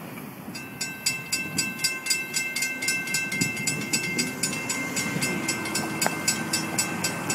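Railroad crossing warning bell ringing in rapid, even strikes, about five a second, starting about half a second in, while the crossing signals flash and the gates rise.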